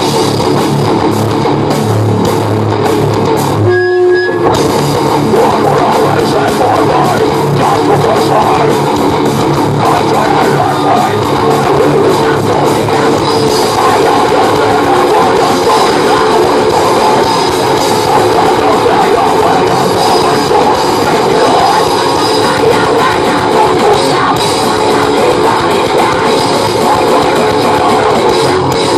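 Live groove metal band playing loud: distorted electric guitars, bass and drum kit, with a brief stop about four seconds in before the band comes back in.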